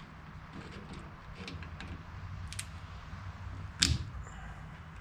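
Small metal clicks and scrapes of a steel pick working on a cotter pin in a castle nut, with one much louder sharp metallic click a little before the end.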